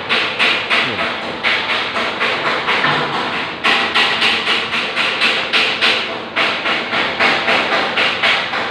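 Rapid, regular knocking, about three to four knocks a second, over a continuous clattering machinery noise.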